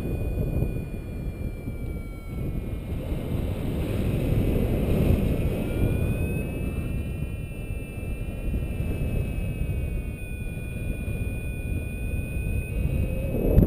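Airflow buffeting the action camera's microphone during paraglider flight: a continuous, uneven low rumble that swells and eases. Faint thin high tones hold steady above it, drifting slightly in pitch.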